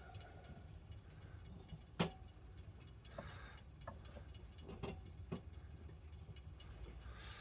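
One sharp click about two seconds in, followed by a few softer clicks and knocks, over a faint low hum.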